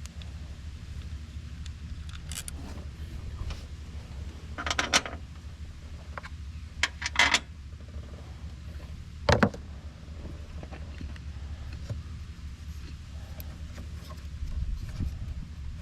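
Metal hand tools and parts clinking and clattering a few times, in short bursts, over a steady low rumble.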